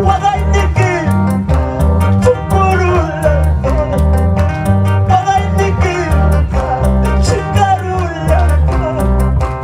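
Live worship band playing an instrumental passage: a sliding, wavering lead melody over keyboards, a heavy bass line and a steady, quick drum beat.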